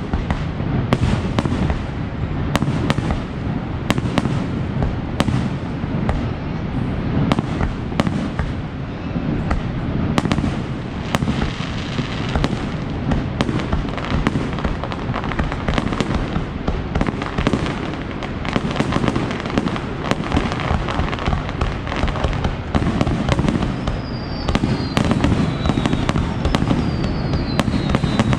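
Aerial fireworks bursting in quick succession, many sharp bangs over a steady low rumble, with a couple of falling whistles near the end.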